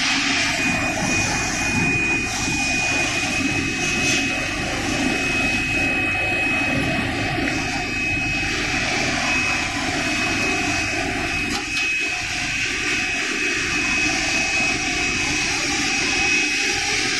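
GKS-14 bag heat sealing machine and its conveyor running: a steady mechanical rush with a thin, constant high whine over it as a filled woven sack is carried through the sealer.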